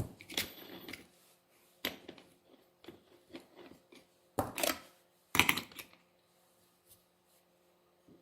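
Metal clicks and knocks of a pin wrench and angle grinder parts being handled, with two longer scraping clatters about four and a half and five and a half seconds in. After that only faint ticks remain.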